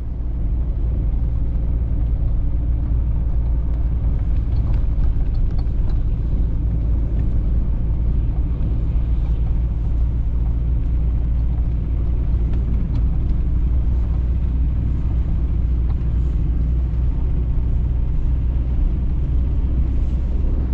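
Car driving over packed snow, heard from inside the cabin: a steady low rumble of engine and tyres.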